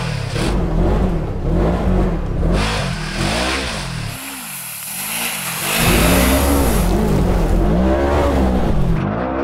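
Polaris RZR off-road buggy's engine revving hard, its pitch rising and falling again and again as it is raced over rough ground. It is loudest in the second half.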